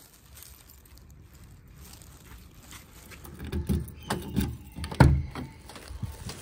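Car door being opened by its outside handle: a few soft knocks and handling noises, then a loud clunk about five seconds in as the latch releases and the door swings open.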